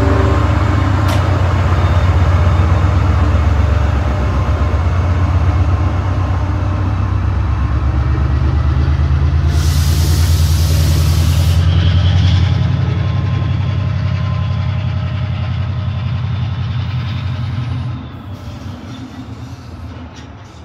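Diesel locomotive engine running hard as the train pulls away, a steady deep throb that fades as it moves off near the end. A loud hiss of air cuts in for about two seconds, around ten seconds in.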